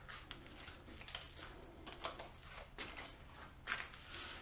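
Faint handling noise: scattered light clicks and rustles as a cordless hammer drill and its bit are handled, over a low steady hum.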